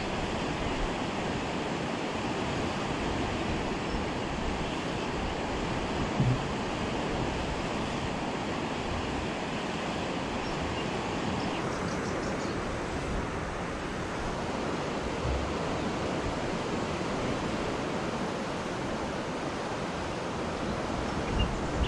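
Steady rushing noise of water at a canal sluice weir, mixed with wind on the microphone. The higher hiss eases a little about halfway through, and there is a single light knock about six seconds in.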